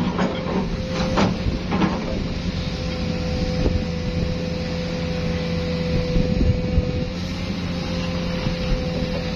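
Mobile crane engines running steadily under load, with a held hum, and a few sharp metal knocks in the first two seconds.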